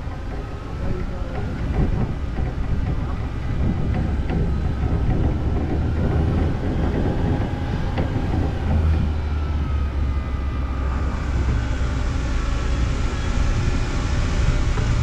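Open-top Moke car driving: a steady low engine and road rumble with a faint whine that rises and falls in pitch. Wind noise on the microphone grows louder about eleven seconds in.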